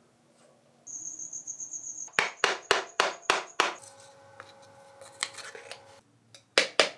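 Six quick, sharp metal knocks, about three a second, while the cast-iron milling machine head is being taken apart. A second cluster of loud knocks comes near the end. A high, rapidly pulsing chirp runs under the first knocks.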